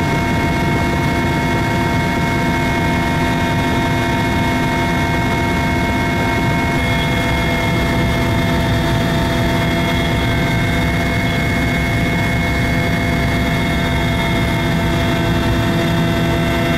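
Mil Mi-171 helicopter running steadily: a constant whine of several tones from its turbines and gearbox over the low rumble of the rotor.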